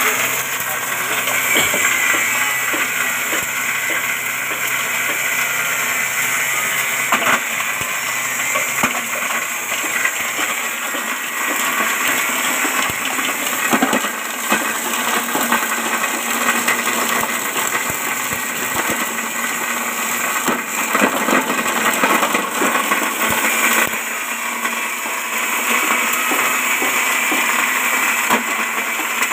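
JG 25 multi-purpose chopper-grinder, belt-driven by an electric motor, running at speed while grinding corn: a loud, steady whirring rush, with scattered sharp cracks as pieces are hit.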